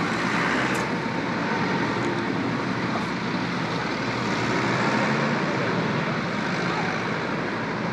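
Steady traffic noise from cars running along a busy city road, with no horns.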